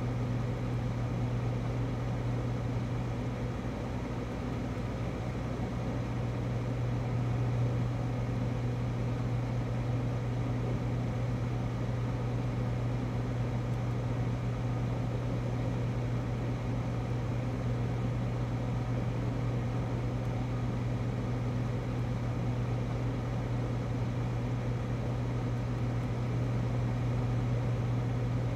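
Restaurant kitchen freezer humming: a steady, unchanging low drone with a faint even hiss over it.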